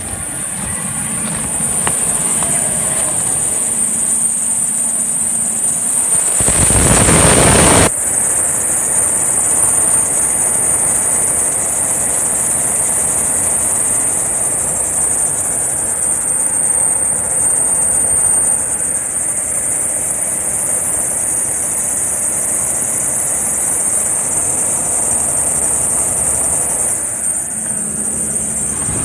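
Serpentine belt on a 2004 Ford Expedition's 5.4L V8 squealing as a steady high-pitched tone over the running engine. The squeal comes with a drop in alternator voltage and appears only in the cold. About six seconds in, a loud rush of noise lasts for about a second.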